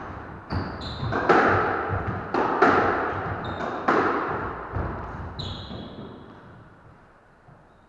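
Squash ball being hit back and forth in an enclosed court: sharp, echoing cracks of the ball off rackets and walls, three loudest about 1.3 seconds apart, with short squeaks of shoes on the wooden floor. The hitting stops about four seconds in and the echo dies away.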